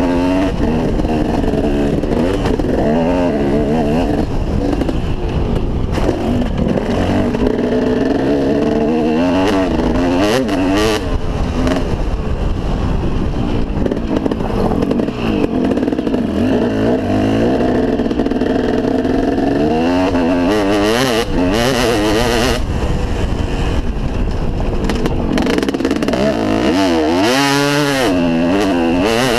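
2003 KTM SX 250 two-stroke motocross engine under way at an easy pace, its pitch rising and falling repeatedly as the throttle opens and closes, heard from a helmet-mounted camera.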